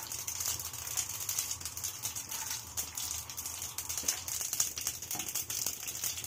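Mustard seeds and peanuts frying in hot oil in a kadai: a steady sizzle full of fine crackling pops, the tempering for upma.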